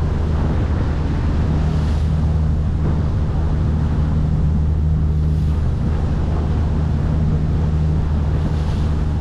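Boat engine running steadily under way, a constant low hum, with wind buffeting the microphone and the wash of water alongside.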